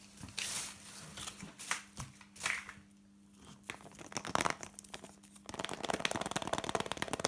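Foil wrapper of a Kinder Surprise egg being crinkled and torn off by hand: scattered crackles and rustles, then a dense stretch of fine crinkling in the last couple of seconds.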